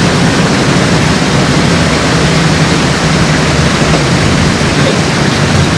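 Charter boat's engine running with a steady low drone, under loud rushing wind and water noise.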